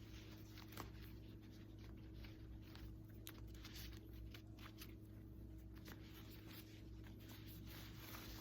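Faint rustling and crinkling of packaging as a handbag is unwrapped, in short scattered bits over a low steady hum.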